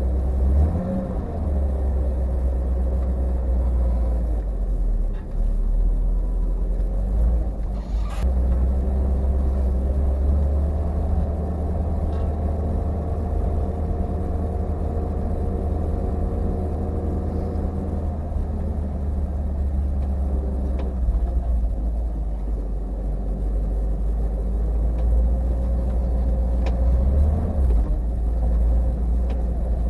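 Car engine running with a steady low road rumble, heard from inside the cabin while driving on a snow-covered road; the engine note shifts a few times.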